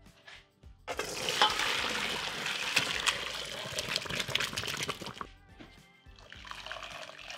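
Boiling water and blanched potatoes poured from a stainless pot into a metal colander: a rush of splashing water with sharp knocks, starting about a second in and lasting about four seconds. A softer second pour follows near the end.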